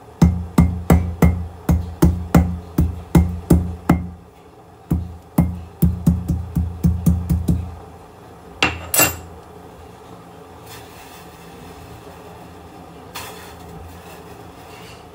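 Ginger being crushed with a metal pestle in a mortar: about three ringing strikes a second, with a short pause about four seconds in, stopping about eight seconds in. A brief clatter follows about a second later.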